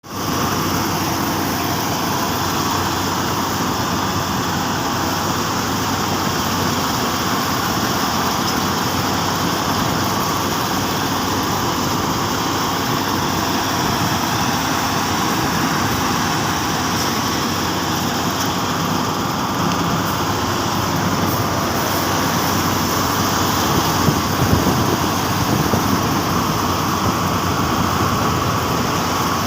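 Combine harvester running steadily while harvesting rice: a constant engine and machinery noise, with a few brief louder sounds about twenty-four seconds in.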